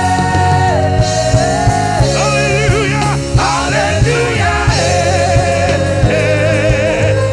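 Gospel worship song: a voice holding long notes with vibrato over a band, with bass and a steady drum beat.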